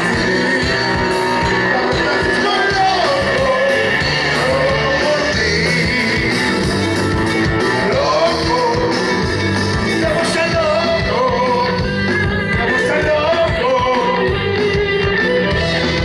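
Live rock band playing a song with a male singer over electric guitars, keyboard and drums.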